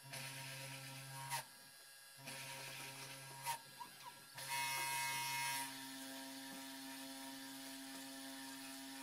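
Small desktop CNC spindle motor running steadily while an end mill cuts holes in copper-clad FR4 circuit board. The hum breaks off and restarts twice, each time with a click. Around the middle a louder, hissier cutting sound joins it for about a second.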